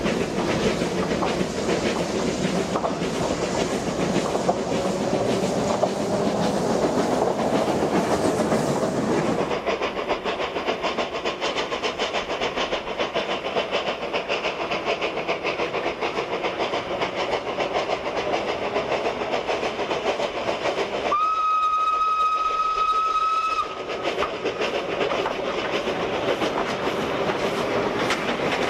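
Isle of Man Railway No. 1 Sutherland, an 1873 Beyer Peacock steam tank locomotive, running on narrow-gauge track alongside an electric tramcar, with the clatter of wheels over the rails. About three quarters of the way through, its steam whistle sounds once, a steady note held for about two seconds.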